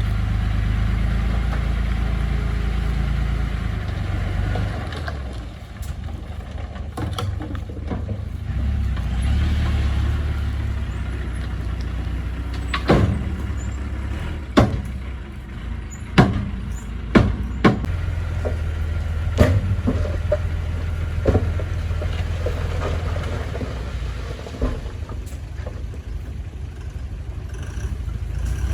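Heavy diesel construction machine engine running steadily with a low rumble. Partway through comes a string of about seven sharp knocks.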